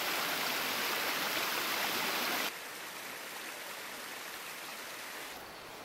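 Running water, a steady rushing noise that drops abruptly to a quieter level about two and a half seconds in, then softens a little more near the end.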